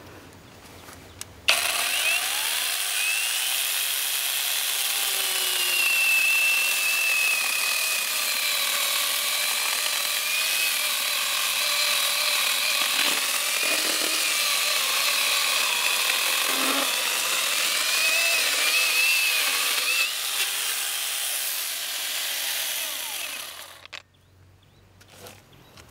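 Akaido cordless brushless angle grinder driving a chainsaw attachment, starting abruptly and sawing into a log, its high whine wavering in pitch as the chain bites into the wood. It stops about two seconds before the end.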